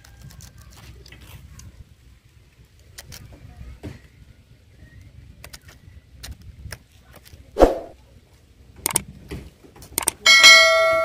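Faint scattered clicks and one sharp knock past the middle, then a few clicks and a bright bell ding from a YouTube subscribe-button animation near the end. The ding is the loudest sound and rings on, fading slowly.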